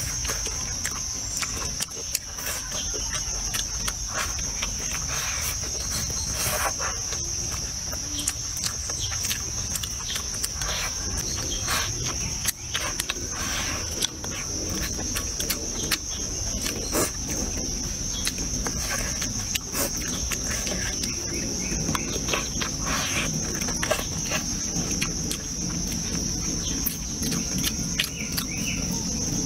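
A steady high-pitched insect drone, crickets or cicadas, under close-up eating sounds: chewing, with many short clicks and crunches, some from chopsticks on a ceramic bowl.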